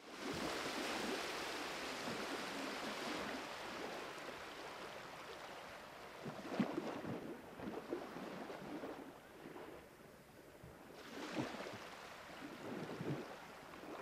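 Water lapping and splashing gently at the sea surface, with wind noise on the microphone; a few louder splashes come about six and a half, eleven and a half and thirteen seconds in.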